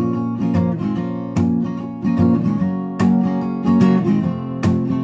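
Acoustic guitar strumming chords, with a heavy downstroke about every second and a half and lighter strokes between.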